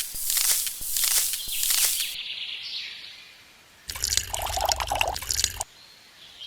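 Liquid pouring and splashing for about two seconds, fading out. After a pause, a second spell of noisy splashing with a low hum underneath.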